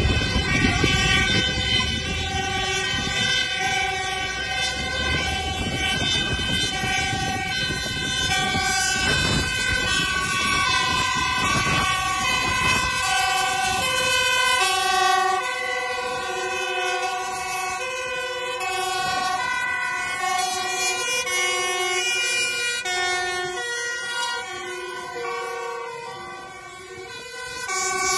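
Fire engines' two-tone hi-lo sirens, stepping back and forth between two notes about once a second, with the rumble of the trucks' engines, loudest in the first half.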